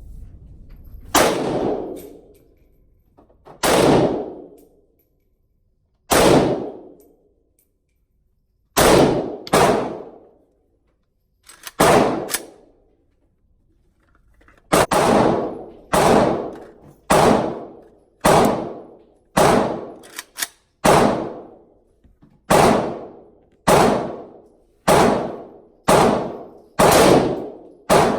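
Palmetto State Armory GF3 AK-47 in 7.62x39 fired semi-automatically, a string of single shots each followed by about a second of echo. The first shots come slowly, two to three seconds apart, then from about halfway on they come steadily about one a second.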